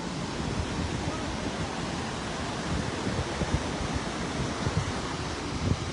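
Ocean surf washing on a sandy beach as a steady rush, with wind buffeting the microphone in uneven low thumps.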